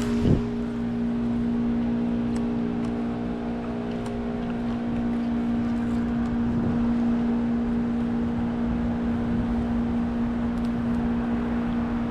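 Steady motor hum holding one constant pitch, with a short knock about a third of a second in.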